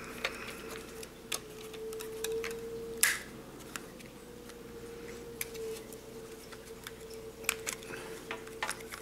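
Scattered light clicks and taps of a plastic toy quadcopter body being handled as its battery is taken out, the sharpest about three seconds in and a few more near the end, over a steady faint hum.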